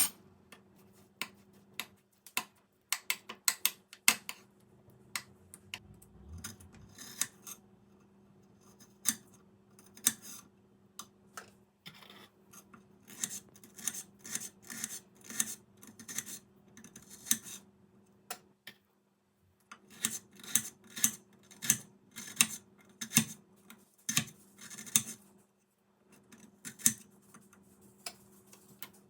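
Irregular run of small sharp clicks and taps from objects being handled, coming in clusters with short pauses, over a faint steady hum.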